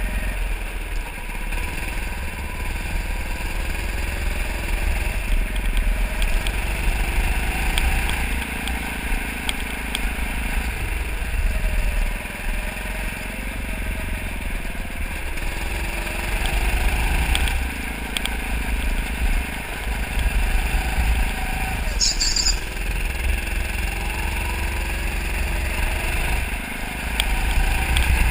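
Go-kart running hard around an indoor track, its pitch rising and falling with the throttle through the corners, over a heavy low rumble. A brief high squeak comes near the end.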